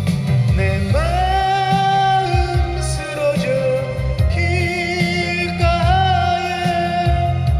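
A man singing karaoke into a microphone over a backing track, both amplified through a portable speaker. He holds long notes with vibrato, one about a second in and another near the end.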